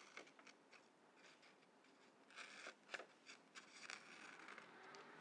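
Faint snips of scissors cutting paper, a few scattered cuts mostly in the second half, over quiet room tone.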